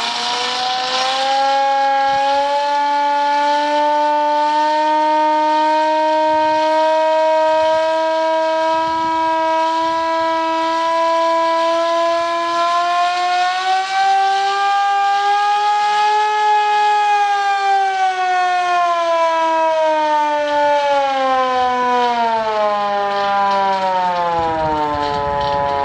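Civil defense siren sounding one long wail. Its pitch climbs slightly, then falls steadily over the last several seconds.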